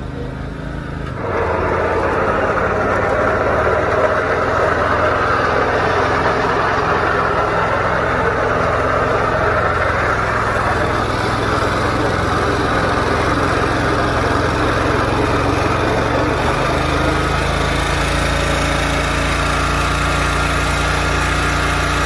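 Kawasaki FH680V V-twin engine on a zero-turn riding mower running steadily after a complete rebuild. It gets louder about a second in and then holds steady.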